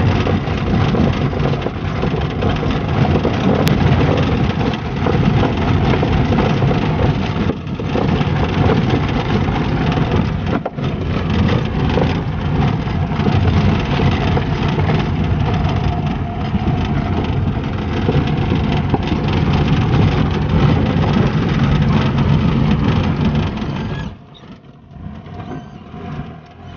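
Car on the move: steady engine and road rumble, heaviest in the deep range, falling much quieter near the end.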